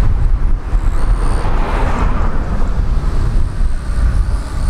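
Jet engines of an Airbus A320-200 airliner running as it rolls along the runway, a steady low rumble with a broad hiss that swells about two seconds in.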